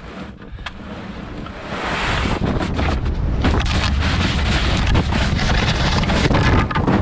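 Plastic whitewater kayak hull scraping and grinding down a steep dirt and gravel bank, growing much louder from about two seconds in, with a dense crackle of grit and stones under the hull. Wind rushes over the microphone.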